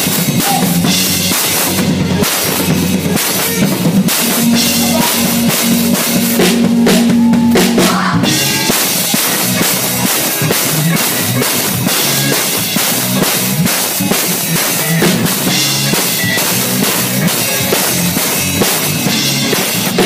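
Drum kit played hard at close range, with cymbals ringing and kick and snare hits, over the rest of a band's music. A held low note from another instrument sounds between about four and eight seconds in.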